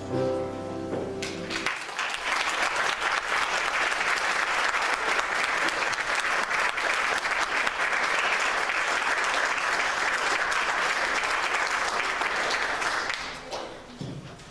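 Held notes of music end about two seconds in, and a crowd's applause takes over, fading away near the end.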